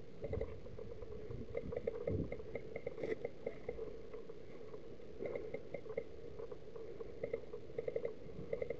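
Faint short clicks in small irregular bursts, typical of airsoft guns firing, over a steady low hum.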